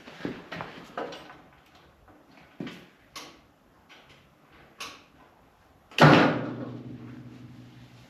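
Light knocks and clatter of tools and metal parts being handled, then a loud metallic bang about six seconds in that rings on and fades over the next two seconds.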